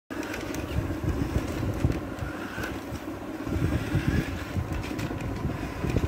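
Remote-control toy quad bike driving across a tiled floor: its small electric motor and gears whirring, with an uneven low rumble and small knocks from its plastic wheels on the tiles.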